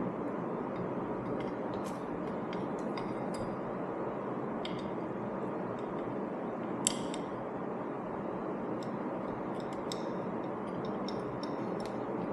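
Small metal hardware clicking and clinking as bolts, nuts and a license plate are handled and fitted to a turn-signal-eliminator bracket, with one sharper click about seven seconds in, over a steady background hiss.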